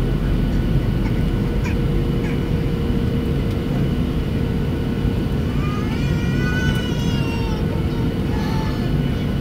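Steady cabin roar of a Boeing 737-700 in flight, its CFM56 engines and the airflow heard from a seat over the wing. About six seconds in, a brief high-pitched voice cries out over it.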